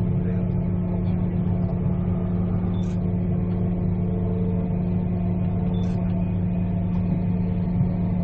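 Steady running noise inside a passenger train carriage at speed: a low hum and rumble. A faint short high-pitched blip comes twice, about three seconds apart.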